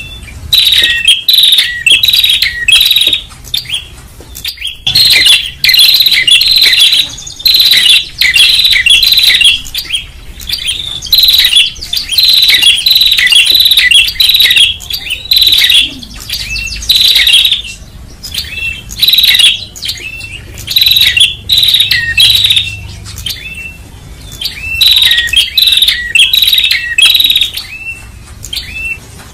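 Tailorbirds (prenjak) calling loudly and excitedly: rapid chirping phrases about a second long, repeated over and over with short breaks and a few longer pauses.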